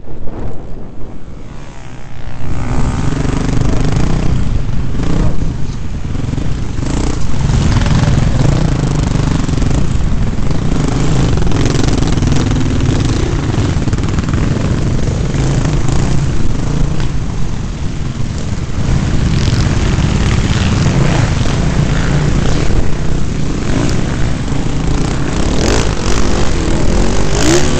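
Off-road dirt bike engine heard from the rider's helmet, revving and easing as it rides the rough track, with other dirt bikes close by. It is quieter for about the first two seconds, then picks up and runs loud and steady.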